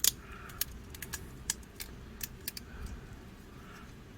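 Plastic parts of a transforming robot toy clicking and clacking as they are pulled out, folded and snapped into place by hand: about a dozen sharp, separate clicks, the loudest at the very start.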